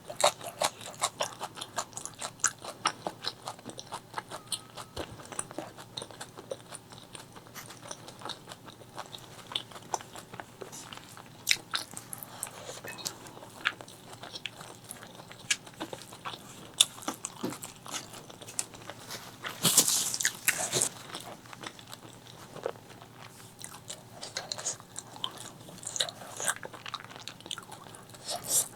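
Close-miked eating of spicy chicken liver, gizzard and rice: steady wet chewing with many irregular crunchy clicks, the firm gizzard being bitten and chewed. A louder bite and chew comes about twenty seconds in.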